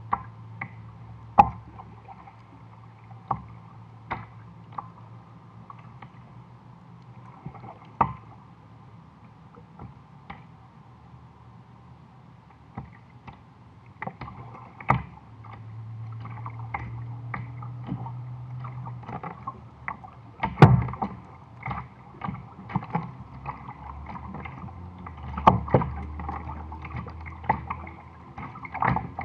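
Irregular knocks and splashes on a plastic sit-on-top kayak's hull as it drifts, with water lapping and a steady low hum underneath. The knocks come every second or few seconds, with the sharpest about a second in and near the two-thirds mark.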